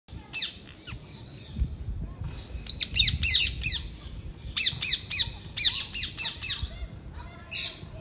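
Rose-ringed parakeet giving harsh, squawking calls in quick runs of several, each call falling in pitch, with short pauses between the runs, over a low rumble.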